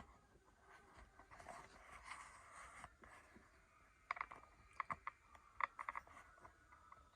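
Faint handling sounds at an opened sewing machine: a soft rustle, then a quick run of light metallic clicks and clinks with a short ring, as tools and metal parts are handled around the tension assembly.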